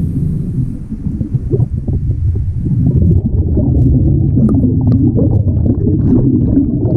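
Air bubbles gurgling and crackling past a camera recording underwater, over a steady low water rumble.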